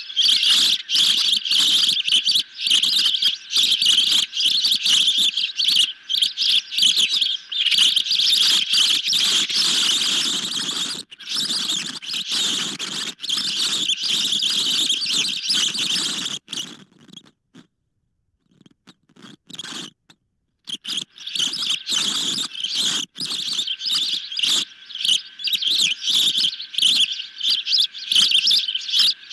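Ospreys calling in a rapid, almost unbroken stream of high, piercing chirps, breaking off for about three seconds just past the middle.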